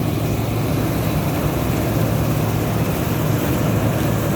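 Combine harvester running steadily while cutting wheat: a constant engine drone with a noisy mechanical hum over it.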